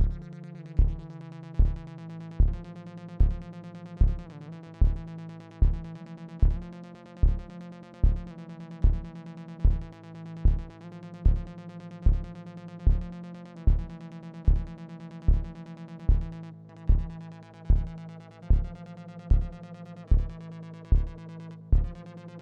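Electronic jam on Korg Volca analog synthesizers and drum machine: a sustained low synth drone with a steady kick drum that comes in at the start and hits about every 0.8 s.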